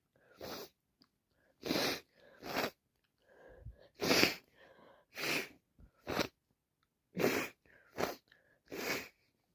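A person sneezing over and over in an allergy fit: about nine short, sharp sneezes roughly a second apart, the loudest about four seconds in, with quick breaths drawn between them.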